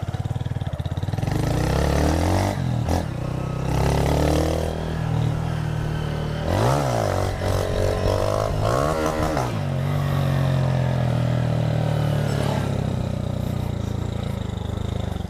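Motorcycle engines revving, the pitch swooping sharply up and down several times as the throttle is opened and eased off, then running more steadily near the end.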